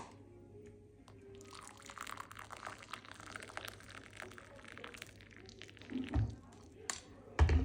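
Liquid being poured into a container for about four seconds, a dense fine splashing, over a low steady hum; a few short dull knocks follow near the end.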